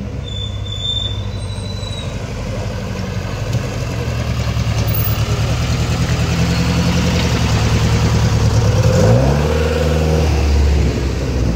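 Historic rally car engine running, growing louder, then revving up briefly about nine seconds in.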